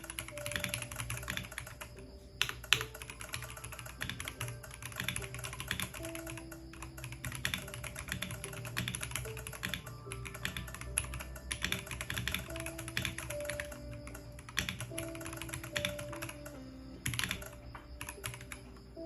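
Typing on a Royal Kludge H81 mechanical keyboard with brown tactile switches: a rapid, continuous run of keystroke clacks with a couple of brief pauses.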